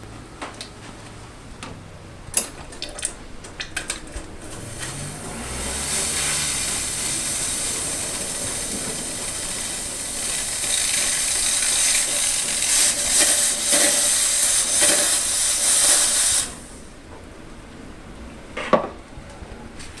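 Saeco Royal Cappuccino's steam wand hissing loudly and steadily for about ten seconds, then cutting off suddenly. Light plastic clicks and knocks come before it, and one knock near the end.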